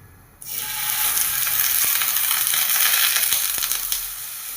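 Besan (gram-flour) paratha sizzling in oil on a hot pan, the sizzle starting suddenly about half a second in, with faint ticks and pops through it.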